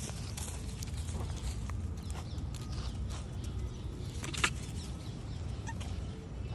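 Footsteps crunching on dry leaves and dirt, with irregular small crackles over a steady low rumble and one sharp click about four and a half seconds in.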